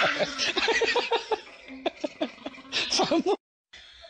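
A person laughing and giggling in quick, short pitched bursts, cut off abruptly a little over three seconds in.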